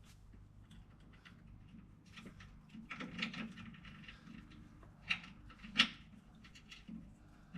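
Scattered clicks and taps of bolts and hand tools being handled while fitting a car's front sway bar, with two sharper knocks about five and six seconds in.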